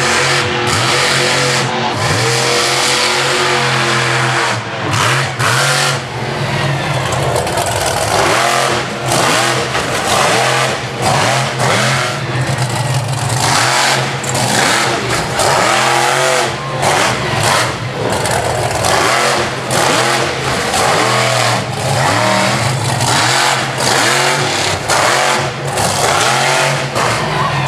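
Monster truck engine running loud and hard, revving up and down over and over, with frequent brief throttle chops that make the sound dip.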